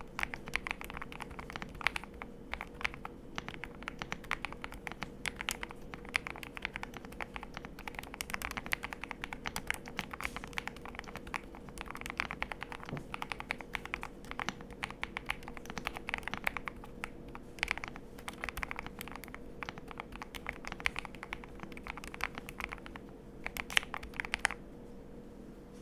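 Typing on a mechanical keyboard with lubed KTT Roses linear switches, PC plate, full foam and tape mod: a fast, continuous clatter of keystrokes. The typing stops about a second before the end.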